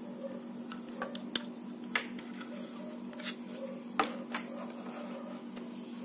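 Handling noise from a small plastic USB hub with Ethernet adapter and its cable being moved about and put down on a wooden table: a few sharp clicks and knocks, the loudest about four seconds in, over a steady low hum.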